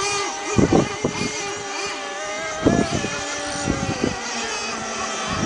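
Several radio-controlled racing boat engines run at high revs across the water, their steady whine sliding slowly in pitch as the boats pass and turn. A few low thumps on the microphone are the loudest moments.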